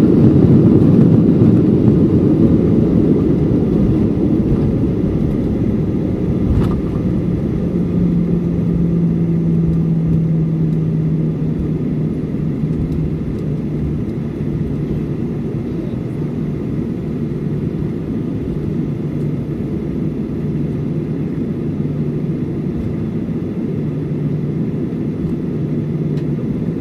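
Cabin noise of a Boeing 737-800 after a night landing: a loud low rumble that fades over the first dozen seconds as the jet slows down, leaving a steadier engine hum as it rolls on.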